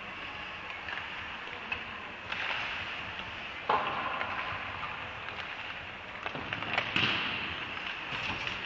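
Ice hockey rink game sounds: a steady scraping hiss of skates on the ice with sharp clacks of sticks and puck, the loudest about three and a half seconds in and a cluster more near seven seconds.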